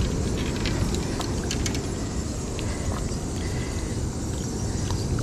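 Steady low rumble of wind and surf at the shore, with faint scattered clicks and ticks from gloved hands handling the fishing line and sabiki rig.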